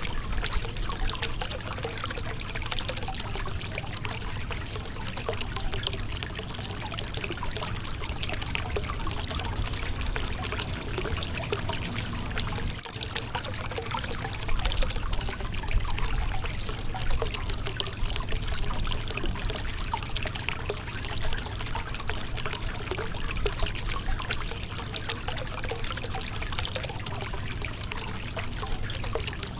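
Shallow river water running and splashing over a rocky bed: a steady rushing babble full of small trickles and splashes.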